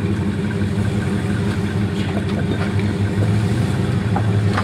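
Jeep engine running steadily at low revs as the Jeep crawls over boulders, with a few faint knocks near the end.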